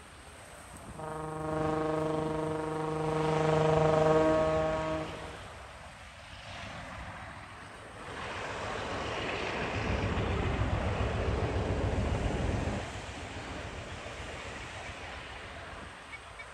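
A diesel passenger train's horn sounds one steady blast of about four seconds. Several seconds later comes a louder stretch of low rumbling noise, which cuts off sharply.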